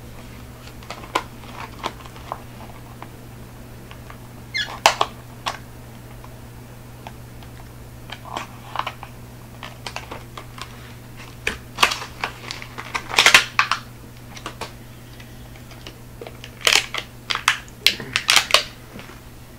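Plastic blister package of a diecast model car being pried and torn open by hand: scattered clicks and crackles in irregular bursts, busiest in the second half.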